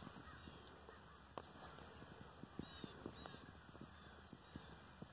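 Near silence: faint outdoor quiet with a few faint, short descending bird calls and scattered soft clicks.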